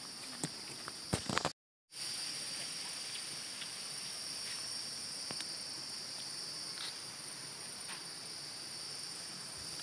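Steady chorus of insects in vegetation, a shrill held high-pitched tone in two bands. A few sharp clicks near the start from a hand brushing the phone, and the sound cuts out completely for a moment under two seconds in.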